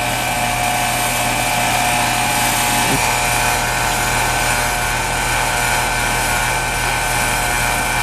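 Split-system heat pump outdoor unit running with a steady, even hum.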